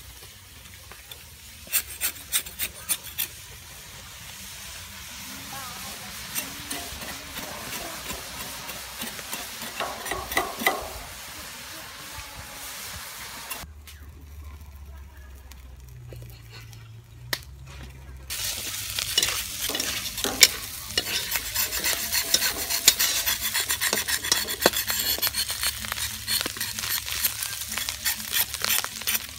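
Chopped beef innards sizzling in oil in a wok over a wood fire, with a metal spatula scraping and clicking against the pan as they are stir-fried. The sizzling is loudest and densest in the last third, and there are a few sharp knocks about two seconds in.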